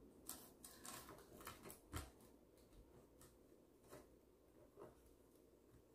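Near silence with a few faint taps and rustles as a red truck cutout is handled and pressed against a grapevine wreath on a tabletop, the sharpest tap about two seconds in.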